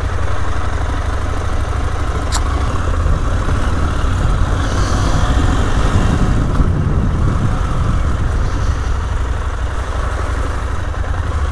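KTM motorcycle engine running at low speed in traffic, a steady low rumble, with a single sharp click about two and a half seconds in.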